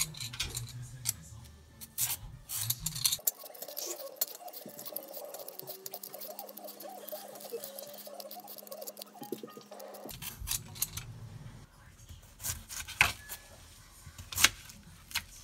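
Y-peeler scraping the skin off a Korean melon (chamoe) in a run of short, scratchy strokes. In the last few seconds a kitchen knife cuts through the peeled melon, with several sharp clicks.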